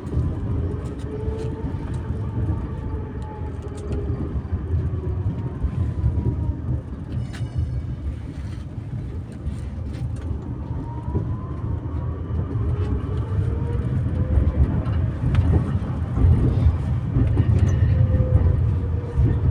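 Electric tram running along street track, heard from inside: a steady low wheel-on-rail rumble with a traction-motor whine that slowly rises and falls in pitch, and scattered clicks.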